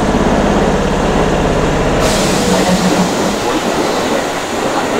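Keihan 2200-series electric train moving through the station. A steady, pulsing low mechanical hum cuts off about two seconds in and gives way to an even hiss and the running noise of the cars.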